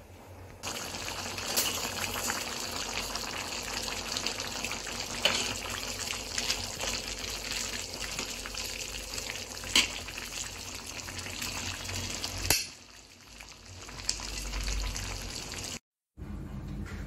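Chicken curry sizzling and bubbling in a stainless steel pan: a steady hiss with a few sharp clinks, most likely the ladle against the pan. It breaks off abruptly about three-quarters of the way through.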